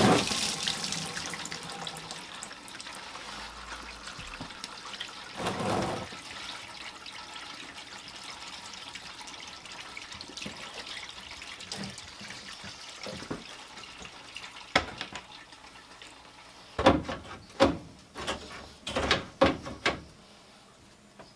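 Radiator coolant pouring out into a drain pan, a steady splashing stream that slowly weakens as the radiator empties. Near the end come a series of sharp knocks and clunks.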